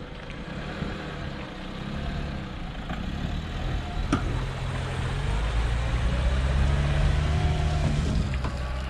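Lada Niva Urban's engine working hard under load as it tows a motorboat on its trailer up through soft beach sand. The engine note grows steadily louder, loudest about seven seconds in.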